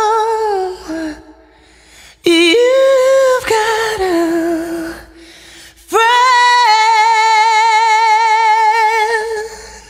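A woman's voice singing three long held notes with a wavering vibrato, unaccompanied, with short breaks between the phrases.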